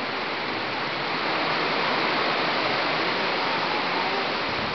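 Hurricane-force wind rushing through leafy tree canopies, a steady loud rush that swells a little about a second in.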